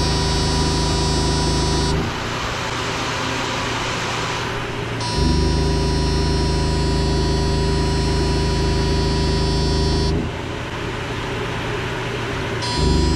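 Electrofishing boat's pulsed-current unit buzzing as the current is switched on and off in spells of a few seconds. A running generator or motor hums steadily between the spells.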